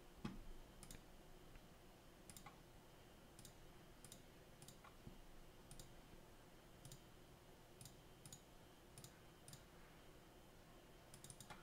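Faint, scattered clicks of a computer mouse and keyboard, roughly one every second, with a quick run of clicks near the end, over near-silent room tone.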